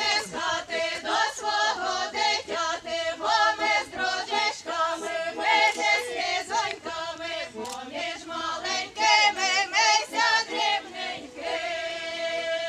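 A choir of voices singing a song together, with the pitch moving from note to note, then settling into one long held chord near the end.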